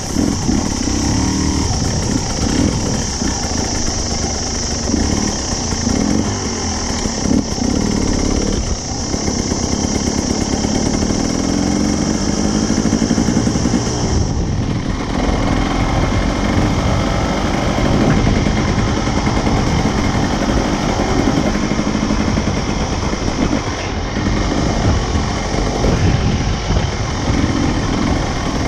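Dirt bike engine running close-up as the bike is ridden, the revs rising and falling with the throttle, over a steady rush of noise.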